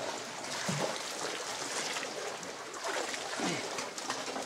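Sea water sloshing and gurgling against rock walls and a sea kayak's hull in a narrow rock channel, with paddle strokes splashing and a couple of deeper gurgling surges.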